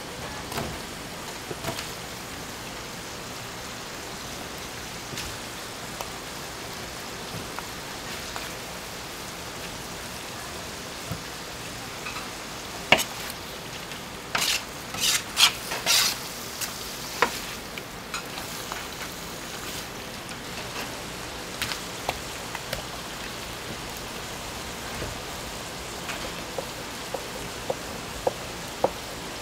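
Pork parts sizzling on a large iron griddle, with scattered clicks and scrapes of utensils against the hot plate and a run of louder scraping strokes about halfway through.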